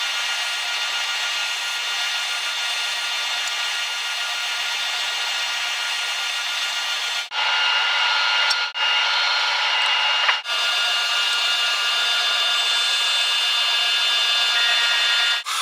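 Woodworking machines running steadily with a motor whir and sanding and cutting noise: a drum sander shaping curved maple parts, then, after abrupt breaks in the sound about halfway through, a slightly louder band saw.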